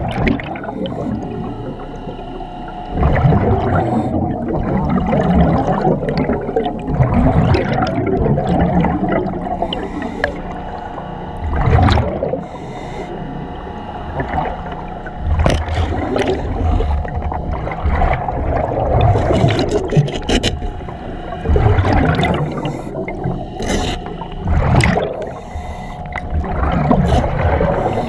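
A commercial diver breathing in a surface-supplied diving helmet underwater: repeated breaths every few seconds, each with a rush and gurgle of exhaust bubbles.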